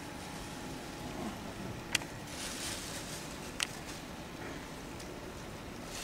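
Two sharp clicks about a second and a half apart over a steady background noise, with a brief hiss between them.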